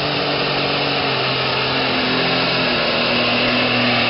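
Super stock pulling tractor's turbocharged engine running flat out under load as it pulls the sled down the track: a loud, steady roar.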